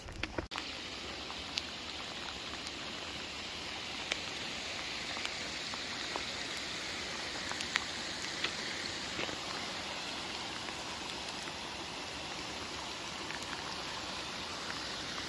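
Steady hiss of rain falling, with scattered faint ticks of drops. A few sharp knocks in the first half second, then the rain runs on alone.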